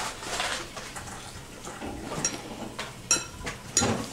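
Light clinks and knocks of kitchen utensils and dishes being handled, with a few sharp clicks through the middle and near the end.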